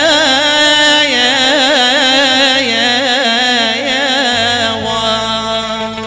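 Male voice holding a long melismatic note in an Arabic mawwal, wavering in a fast vibrato over a steady low drone, sliding down and fading near the end.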